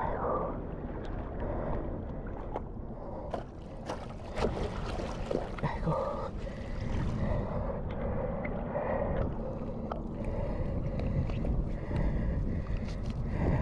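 Seawater sloshing and washing over shoreline rocks, with wind buffeting the microphone and a few scattered clicks and knocks of handling.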